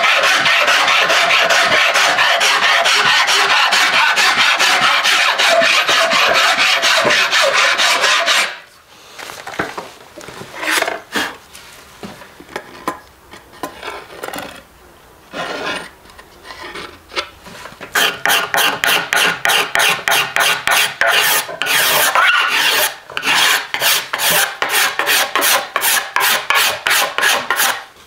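A flat hand rasp worked along a hackberry bow stave, shaving the wood in fast, steady strokes. About eight seconds in the rasping gives way to lighter, scattered scrapes, and the quick, even strokes start again with about ten seconds left.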